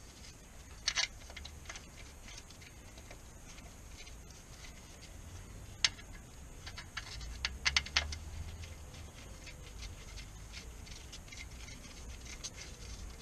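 Hand tools clicking and knocking on metal as bolts are worked on the underside of the car, with irregular light ticks. There are sharper knocks about a second in, near six seconds, and a quick cluster around eight seconds.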